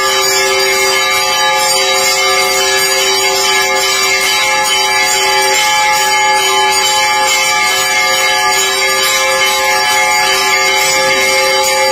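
Temple bells ringing nonstop during a deeparadhana (lamp-waving offering): a dense clangor over steady ringing tones.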